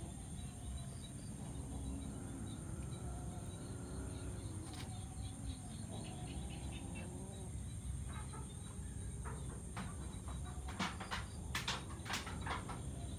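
Outdoor ambience: a steady high-pitched insect chorus, with faint bird calls and a run of sharp clicks about ten to twelve seconds in.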